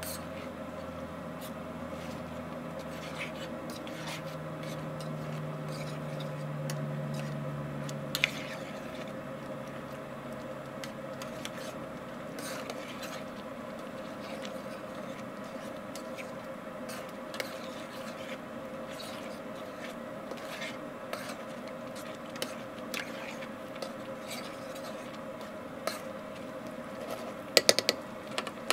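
Tomato chili stirred in a steel frying pan over a coal forge: scattered clicks and scrapes of the utensil against the pan over the simmering sauce, with a steady hum underneath. A quick cluster of louder clinks comes near the end.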